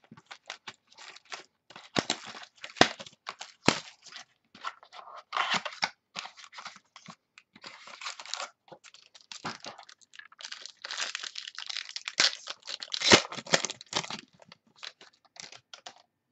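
Trading-card pack wrapper being torn open and crinkled by hand, with irregular crackling and rustling, alongside the cardboard mini box being handled; it stops shortly before the end.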